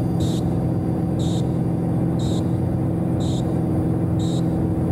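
Cessna P210's turbocharged six-cylinder engine running steadily at full takeoff power during the takeoff roll, heard from inside the cabin. A short high-pitched chirp repeats about once a second over it.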